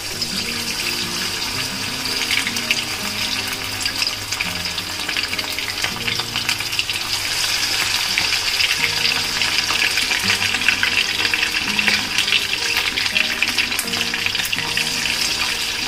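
Battered chicken lollipops deep-frying in hot oil in a wok: a dense crackling sizzle that swells over the first several seconds as more pieces go in, then holds steady. Background music plays underneath.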